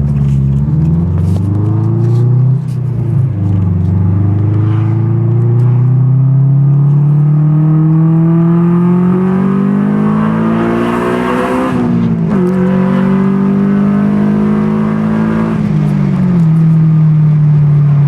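1999 Honda Civic Si's 1.6-litre DOHC VTEC four-cylinder engine pulling hard through the gears: the pitch climbs, drops at a shift about two and a half seconds in, then climbs for a long stretch to high revs where it turns harsher as VTEC engages. It drops at another shift about twelve seconds in, again around sixteen seconds, and then holds steady.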